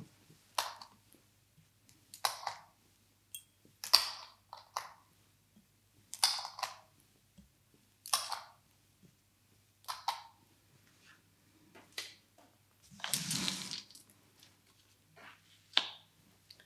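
Montessori fraction-circle pieces being handled and fitted back into their frame insets: a series of light, sharp clacks, one every one and a half to two seconds, with a longer scraping rustle about thirteen seconds in.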